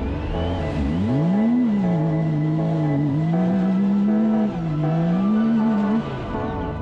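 Side-by-side UTV engine revving as it drives out of muddy water, its pitch rising and falling several times with the throttle.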